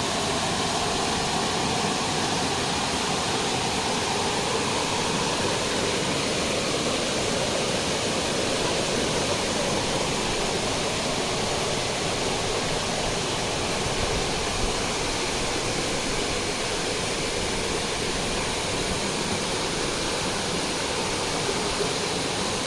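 Steady rush of a waterfall's water pouring over rocks.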